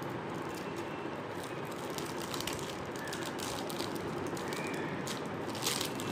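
Steady room background noise, a continuous hiss and hum, with scattered faint clicks and one slightly louder click near the end.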